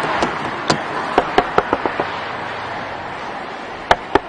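Sharp knocks on a car's door and window, in an irregular cluster over the first two seconds and two more near the end, over a steady rush of highway noise.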